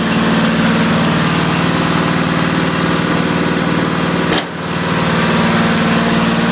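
Riding lawn mower's overhead-valve engine running steadily through its new, loud exhaust, with a brief drop in level and a click about four and a half seconds in.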